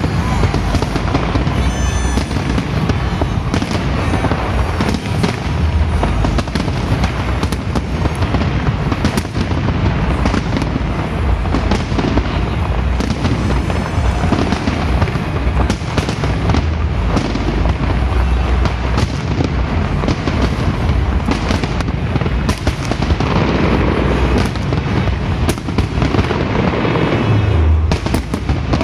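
Large fireworks display going off without pause: a dense stream of bangs and crackles over deep booms, with music beneath.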